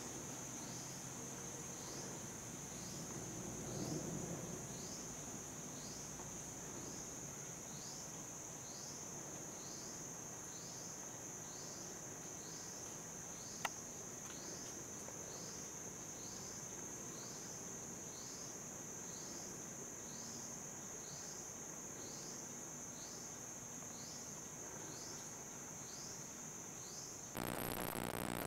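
Insects trilling steadily at a high pitch, with a short falling chirp repeating about once a second. A single sharp click sounds about halfway through, and near the end the sound changes abruptly to a steady electronic hiss and hum.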